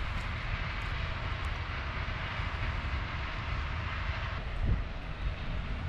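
Wind buffeting the microphone: a steady low noise without any pitch, with one low thump near the end.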